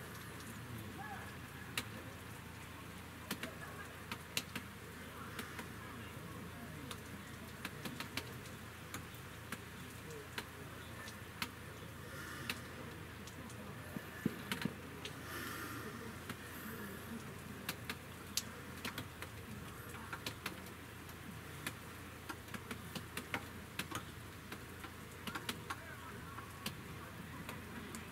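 Outdoor field ambience: a steady hiss broken by frequent, irregular sharp ticks, with faint distant voices now and then.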